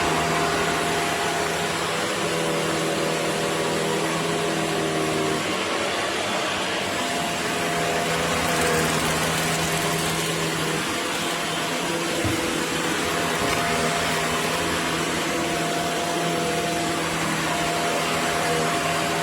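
Vacuum cleaner running steadily: a motor hum over a loud rush of air, its tone shifting slightly a few times.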